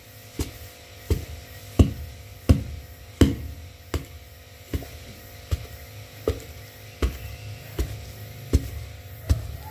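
Pestle pounding a damp rice flour, grated coconut and palm sugar mix in a mortar: a steady run of dull thuds, a little more than one a second, about thirteen strokes. A faint steady hum lies underneath.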